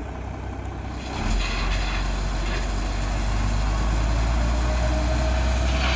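A heavy truck's diesel engine running steadily. It gets louder about a second in, and a faint steady whine joins near the middle.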